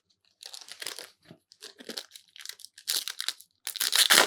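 Foil trading-card booster pack wrapper crinkling and tearing as it is opened, in irregular crackly bursts. It starts about half a second in and is loudest near the end.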